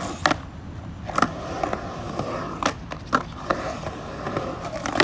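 Skateboard wheels rolling over concrete, with several sharp clacks of the board hitting the ground.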